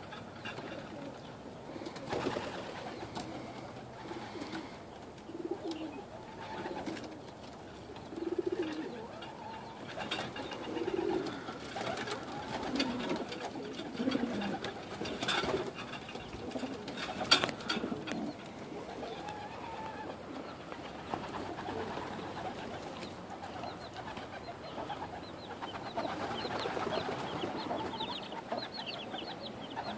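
Domestic pigeons cooing again and again with low, rolling coos, with two sharp clicks about halfway through. Near the end, the high, thin peeping of young chicks comes in.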